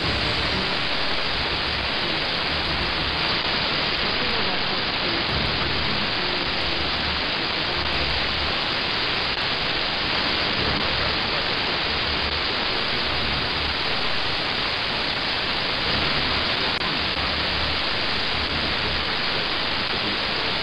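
Shortwave receiver audio on a 17.830 MHz broadcast swamped by a loud, steady rushing hiss with an irregular low throb underneath, setting in suddenly. It is interference from powerline networking adapters passing data, and it drowns out the broadcast.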